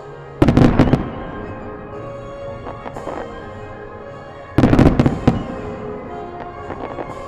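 Fireworks bursting overhead in two quick volleys of several bangs each, about half a second in and again some four seconds later, over music played for the show.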